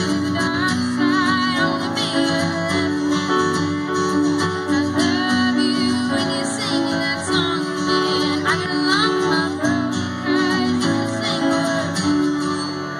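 A woman singing live over a strummed acoustic guitar.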